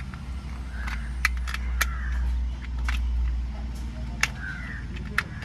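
Several sharp separate clicks of plastic snapping as the press-fit clips of a Toyota Innova's steering spiral cable (clock spring) housing are prised apart by hand, over a low steady hum.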